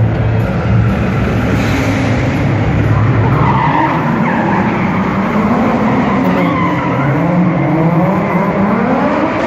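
Drift car's engine revving up and down, its pitch rising and falling repeatedly and climbing near the end, with tyres skidding and squealing as the car slides.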